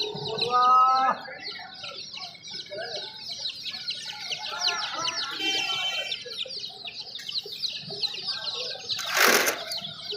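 Many chicks cheeping continuously in a dense, high-pitched chorus of short peeps. About half a second in, an adult chicken gives a short pitched call, and a brief loud rustling burst comes about nine seconds in.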